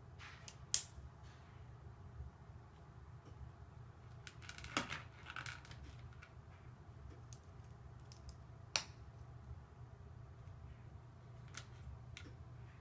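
Plastic Lego pieces clicking and rattling as they are handled and pressed together, with sharp clicks about a second in and near nine seconds and a short rattly cluster around five seconds. A low steady hum runs underneath.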